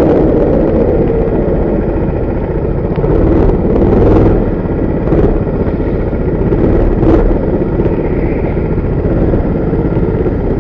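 Go-kart's small engine running, heard from the driver's helmet together with wind and rattle of the kart. It eases off a little after the first second, with a few short knocks.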